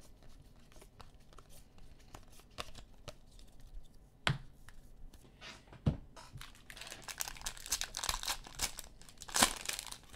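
Soft clicks of trading cards being flicked through by hand, two sharp knocks as the cards are put down, then a foil card pack crinkling and being torn open, loudest near the end.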